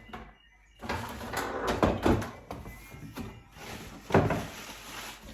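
Plastic blender parts and packaging being handled: rustling and clattering, with one sharp knock about four seconds in as a part is set down.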